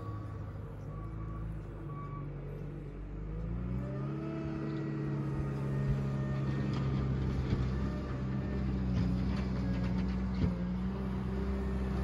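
JCB 409 wheel loader's diesel engine revving up about four seconds in, then running steadily at higher speed while pushing snow with its front plow, getting louder as the machine comes closer. A few light knocks come through over the engine.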